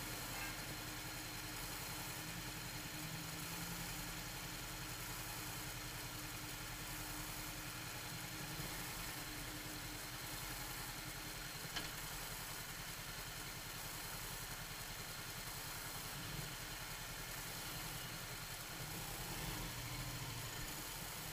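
Motorcycle engine idling at a stop, a steady low running sound with even firing pulses.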